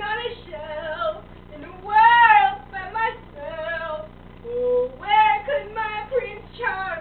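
A high-pitched voice singing without clear words, in several phrases of long arching, wavering notes.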